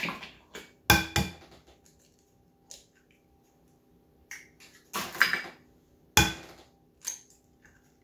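Eggs being cracked against a ceramic mixing bowl: sharp knocks, two close together about a second in and several more from about five seconds in, with a few fainter taps between.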